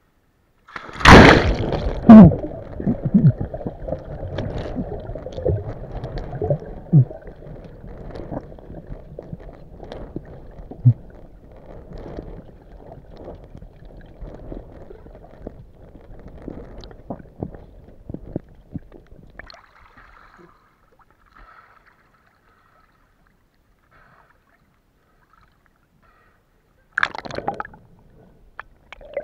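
Splash as the camera goes into the seawater about a second in, then muffled underwater sloshing and gurgling with scattered knocks, fading away over about twenty seconds. A short burst of bubbling comes near the end.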